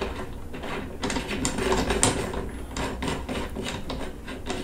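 Metal parts of a front rifle rest being handled and fitted together by hand: scraping with a scatter of small clicks and knocks, as a part is turned on a metal post and the rest shifts on a wooden bench.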